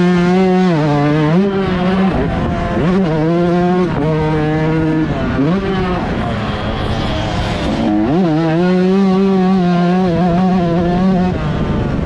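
125cc two-stroke motocross bike engine at high revs, its pitch climbing and dropping back about four times as the throttle is worked.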